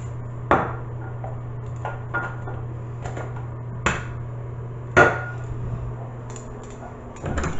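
Hard household objects being handled and set down: a few separate knocks and clacks with a short ring, the loudest about five seconds in, over a steady low hum.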